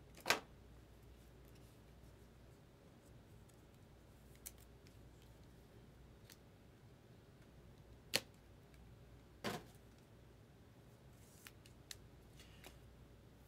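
Trading cards and clear plastic sleeves and a toploader being handled: a handful of brief sliding and clicking sounds of card on plastic. The loudest come just after the start and about eight and nine and a half seconds in.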